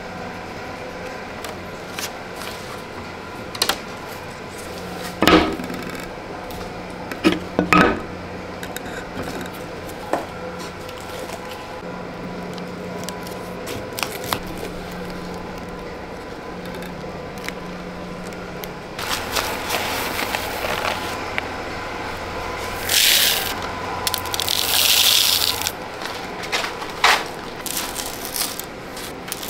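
Handling sounds of a large round board being set and levelled on upturned plastic cups: scattered knocks and scrapes, the loudest a cluster of knocks a few seconds in, over a steady hum. About two-thirds through comes a few seconds of hissing rustle.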